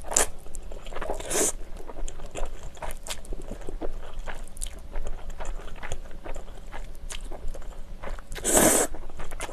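Close-miked eating of spicy instant ramen noodles: steady wet chewing with many small mouth clicks, and loud slurps of noodles about a second in and again near the end.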